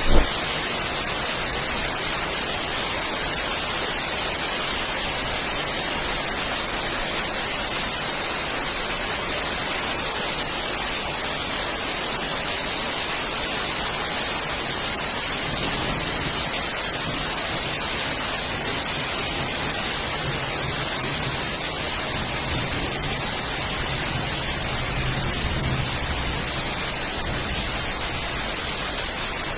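Steady rain falling, an even hiss with no let-up, with one short thump right at the start.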